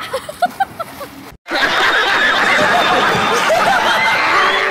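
A few short high-pitched cries, then, after a brief cut, a loud burst of studio audience laughter: many people laughing at once, ending abruptly.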